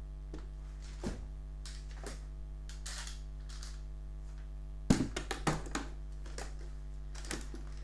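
Heavy eight-cell LiFePO4 battery pack set down on a wooden table about five seconds in: a cluster of knocks and clicks. A steady electrical hum runs underneath.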